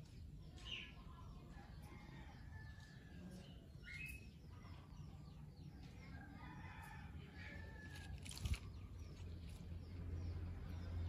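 Birds calling and chirping, short scattered calls, over a low steady hum, with one sharp click about eight and a half seconds in.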